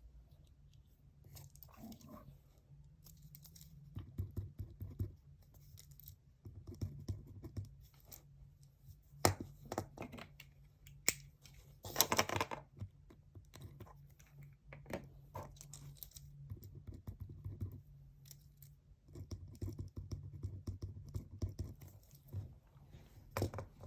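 Desk sounds of someone studying: small clicks and taps, scratching on paper and paper rustling, with a louder rustle about halfway through, over a low steady hum.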